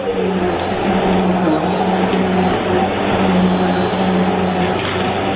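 Bissell PowerForce Helix Turbo upright vacuum cleaner running on a rug: a steady motor drone with a constant high whine.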